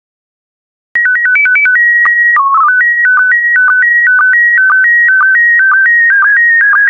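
Slow-scan TV (SSTV) transmission in PD120 mode starting after about a second of silence: a quick run of stepped beeps, a steady high leader tone with a brief drop in pitch for the mode header, then the repeating electronic warble of image scan lines, about two a second, as the picture is sent line by line.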